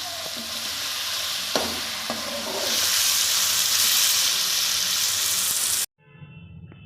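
Pumpkin sabzi sizzling as it fries in a hot pan, with two quick knocks of a stirring spoon about a second and a half in; the sizzle gets louder about three seconds in. It cuts off abruptly near the end, leaving a faint low hum.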